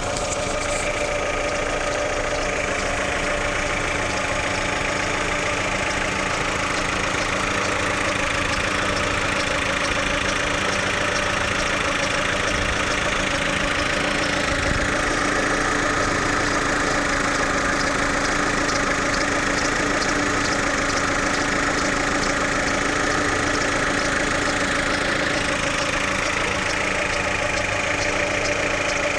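Chevrolet Lacetti engine idling during a cold warm-up, with an extraneous noise over the idle that shows up only while the engine is cold and fades once it warms. The idle is steady, with a fast fine ticking and a slight change in tone about halfway through.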